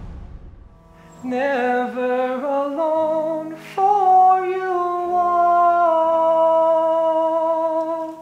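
A solo voice singing a melody over quiet, steady accompaniment, starting about a second in and ending on a long held note that stops abruptly near the end.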